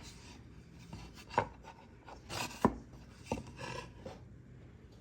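A router guide bushing being worked into a freshly drilled hole in a cutting-board router base: a few sharp clicks and knocks with short spells of scraping and rubbing as the parts are handled and fitted.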